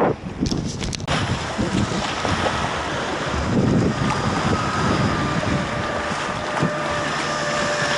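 Small boat under way in choppy sea: heavy wind rushing over the microphone and water splashing along the hull, over the running outboard motor. The wind noise rises sharply about a second in, and a faint steady engine whine comes through from about halfway.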